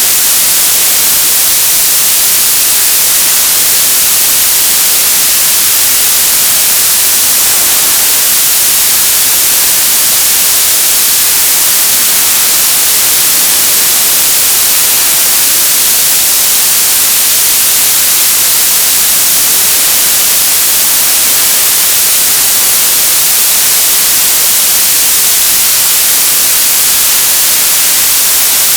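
Television static: a loud, steady hiss of white noise, brightest in the high frequencies, with no change throughout.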